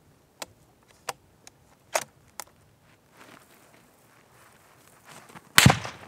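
A few light clicks in the first seconds, then near the end one loud, close rifle shot fired from above by another hunter, which the hunters take for a suppressed rifle.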